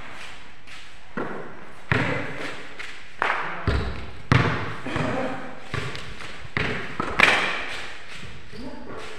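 A basketball bouncing on a concrete court: several hard thuds at uneven intervals, bunched in the middle of the stretch, with voices calling out between them.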